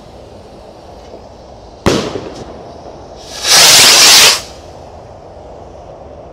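Small 17 g fireworks rockets: a single sharp bang about two seconds in, a rocket's burst overhead, then a loud whoosh lasting about a second as another rocket takes off from the launch tube.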